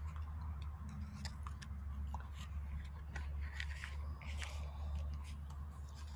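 Faint, irregular small clicks over a steady low hum.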